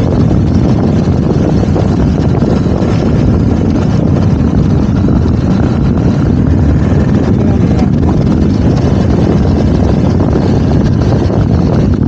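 BMW R1250 GS Adventure motorcycle riding along at a steady speed: its boxer-twin engine runs evenly under a loud, constant rush of wind and road noise.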